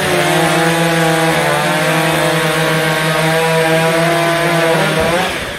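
STIHL chainsaw running at full throttle through a log in a stock saw race, holding a steady high pitch, then stopping about five seconds in.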